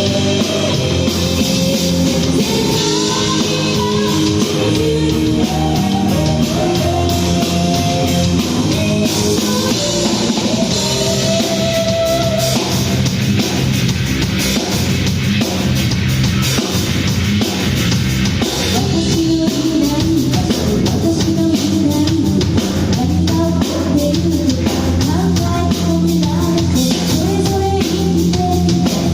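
Rock band playing live: guitar, bass and drum kit with a steady beat, and a voice singing over it.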